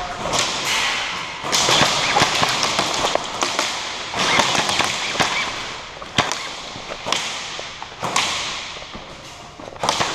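Airsoft guns firing: sharp cracks at irregular intervals, some in quick strings, with echoing noise between them.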